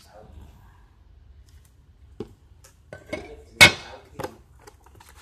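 Metal TV wall-bracket rails being handled and set down on a wooden desk: a few scattered knocks and clinks, with one sharp clank, the loudest, about three and a half seconds in.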